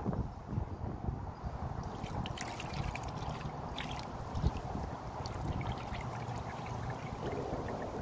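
Water pouring and trickling from the lip of a plastic container onto concrete, a steady wash with light splashing.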